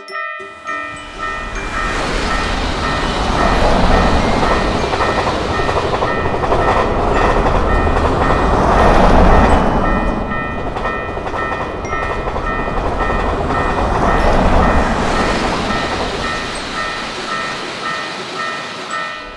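Japanese level-crossing alarm sounding its evenly repeating electronic bell while an electric train passes. The train's rumble and wheel clatter swell and ease a few times and at times nearly cover the bell.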